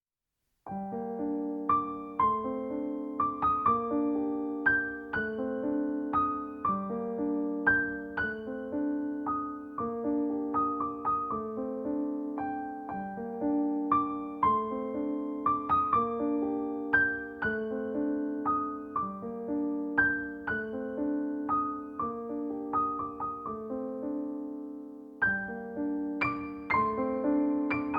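Gentle solo piano background music, a repeating pattern of soft notes, starting about a second in and briefly dropping away before starting over near the end.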